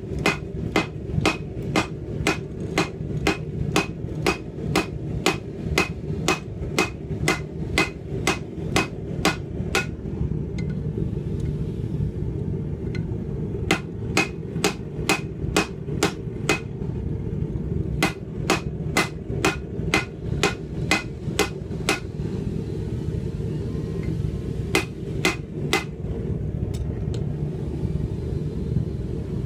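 Hand hammer striking red-hot steel on an anvil while forging a pipe tomahawk: quick, even blows about three a second, in runs of several seconds with short pauses between. A steady low rumble runs underneath.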